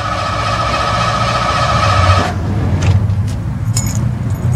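Pickup truck's starter motor cranking the engine, which does not fire because the Chapman anti-theft system has cut out the ignition. The steady starter whine stops about two seconds in, followed by a few light clicks.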